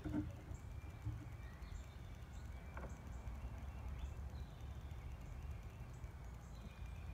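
Quiet outdoor background: a steady low rumble with faint, short high chirps here and there, and a couple of light taps near the start and about three seconds in.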